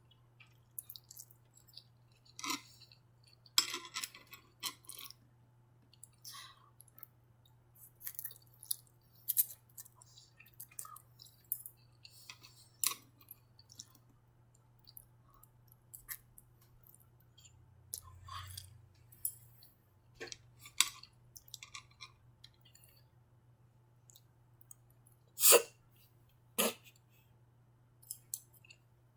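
Close-miked chewing and wet mouth sounds of someone eating shrimp lo mein and orange chicken: scattered smacks, clicks and crunches in irregular bursts. Near the end come two louder, sharper sounds.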